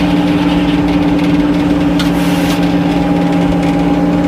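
A steady mechanical hum from a running engine or motor, holding one even pitch, with a brief click about two seconds in.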